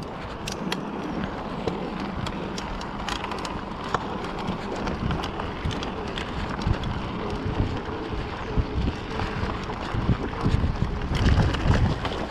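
Mountain bike rolling over a gravel forest track: tyres crunching on loose stones, with many sharp ticks and rattles from the gravel and the bike, and wind buffeting the microphone. It gets louder and rougher about ten seconds in.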